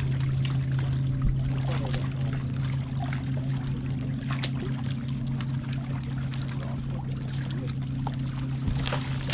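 Bow-mounted electric trolling motor running with a steady low hum, with a few faint clicks and light water sounds over it.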